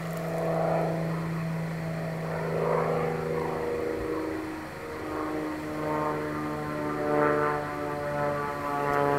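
Propeller-driven light airplane flying overhead: a steady engine drone with several tones, the pitch dropping about halfway through as it passes.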